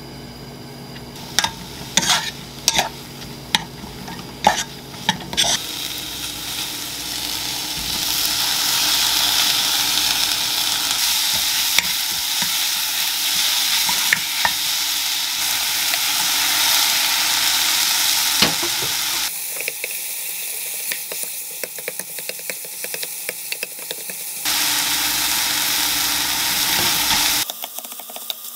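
Sliced mushrooms, green onion and garlic sizzling in olive oil in a nonstick frying pan while a wooden spatula stirs and scrapes them. It opens with a string of sharp clicks from utensils against the pan, then the sizzling swells after a few seconds and changes abruptly at a few points.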